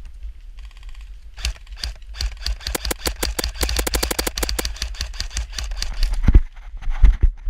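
Airsoft electric gun firing a long full-auto burst of rapid, evenly spaced shots, about ten a second, starting about a second and a half in and lasting about four seconds. A few heavy low thumps follow near the end.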